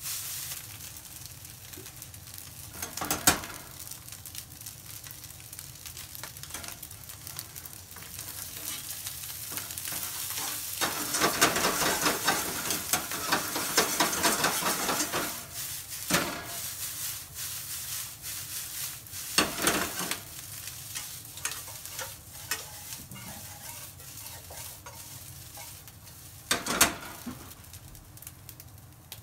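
Fried rice sizzling in a hot wok over a gas flame, stirred and scraped with a metal spatula. There are about four sharp knocks of metal on the pan. The sizzle flares louder for a few seconds near the middle, where the finishing oil goes in.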